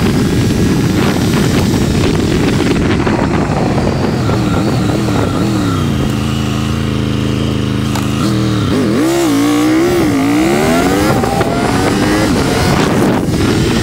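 Triumph Tiger 1200 Rally Pro's three-cylinder engine running under way, with wind rushing past. About halfway through the engine note holds steady, then falls and climbs again a few times as the throttle changes.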